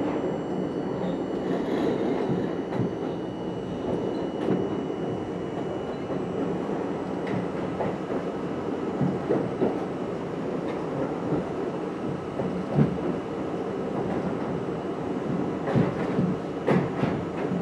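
R32 subway train running along a station platform, heard from inside the front car: a steady rumble of wheels on rail with a faint high whine, and a few sharp wheel clacks about three-quarters of the way through.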